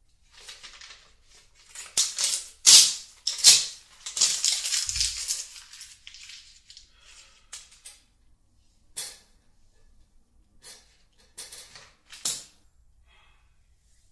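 Paper being handled at a desk: sheets and book pages rustling and crumpling in a run of bursts, with a dull thud about five seconds in, then a few shorter rustles near the end.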